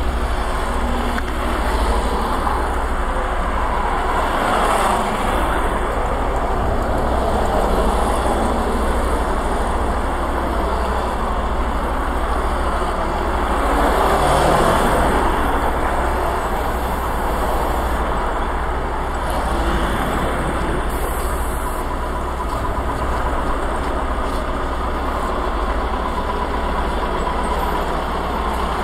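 Steady low rumble of a motor vehicle's engine and road noise, running without a break and swelling briefly about halfway through.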